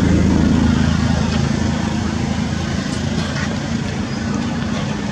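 An engine running steadily: a low, even drone over a hiss of outdoor noise.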